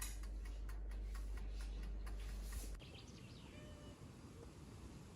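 Light clicks and handling noise over a steady low hum. About three seconds in this cuts off to a quieter background with a few brief, faint bird chirps.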